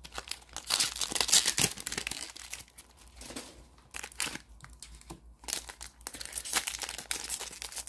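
Foil wrapper of a Panini Mosaic football card pack crinkling and crackling in the hands as it is worked at to tear it open, with irregular crackles that ease off for a moment in the middle.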